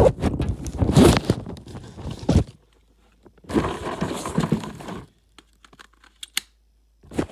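Rummaging and handling noises: rustling and crinkling with knocks as things are set down and picked up, in two stretches, then a few sharp clicks near the end.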